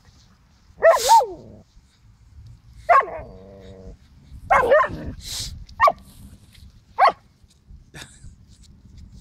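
Huskies play-barking: about five short, sharp barks and yips, the first about a second in. The one near three seconds trails off into a short low growl, and the last three come about a second apart.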